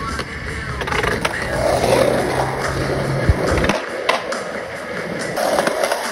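Skateboard wheels rolling on asphalt and concrete, with several sharp clacks of the board against the ground, over background music.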